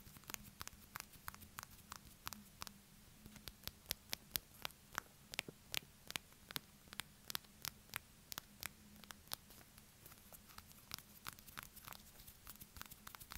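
Fingernails tapping and scratching on a small plastic-wrapped snack package in quick, irregular taps, several a second, with a faint steady hum underneath.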